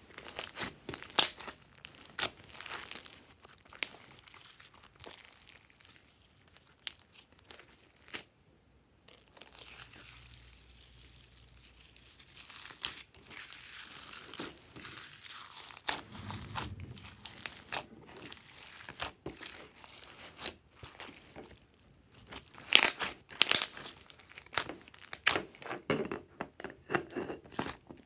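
Slime being squished, stretched and pressed by hands: close, sticky clicks, crackles and sharp pops as air pockets burst. In the second batch foam beads are mixed through it.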